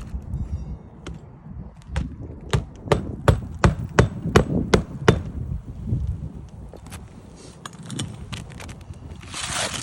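A hammer striking on a shingle roof, a quick run of about ten sharp blows, roughly three a second, that stops after about three seconds.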